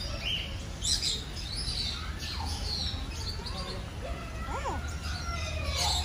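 Mixed birds chirping and calling: many short high chirps with a few lower gliding calls, over a low steady rumble.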